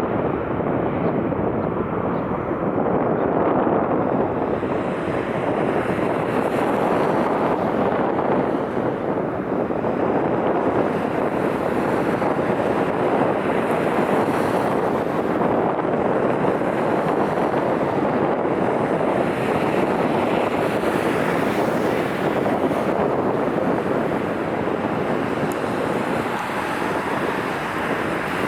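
Strong wind buffeting the microphone: a steady, loud rushing roar with no distinct pitch.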